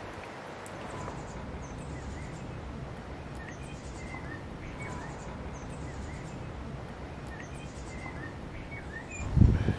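Small birds chirping with short, scattered calls, over a steady low rumble of wind on the microphone. There is a brief louder low rumble near the end.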